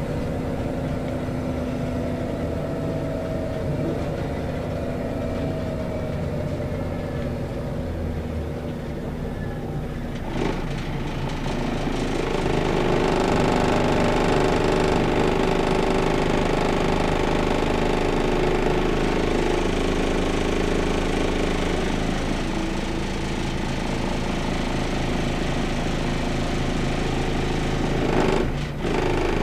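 Scania L94UB city bus's diesel engine and ZF automatic driveline heard from inside the bus while driving. The engine note steps up about ten seconds in and runs louder and steadier after that, with a brief break near the end.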